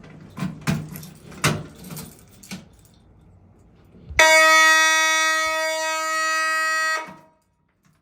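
A few clicks and knocks, then about four seconds in a fire alarm horn sounds one loud, steady tone for about three seconds and cuts off abruptly: the building's alarm set off in full during a fire alarm system test.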